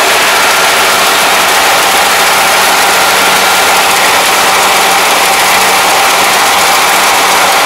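Rice combine harvester running and cutting rice close up: a loud, steady drone of engine and machinery, with a few faint steady whines over it.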